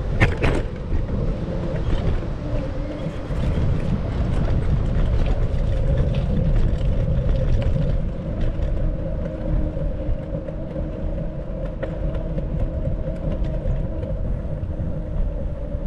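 Steady low rumble of city traffic and road noise, with a faint steady hum over it and a sharp click right at the start.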